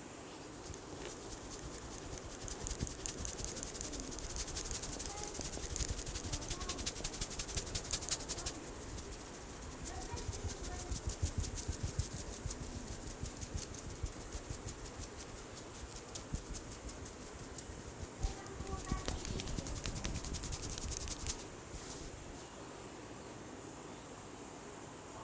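Hands rapidly and steadily tapping on a head during a head massage, starting about two seconds in and stopping shortly before the end.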